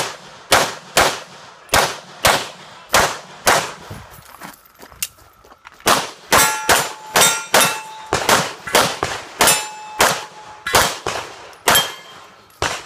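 Production-division competition pistol fired in fast strings, the shots mostly in quick pairs with short pauses between them, about thirty in all. After several shots a brief metallic ring follows, as a steel target is hit.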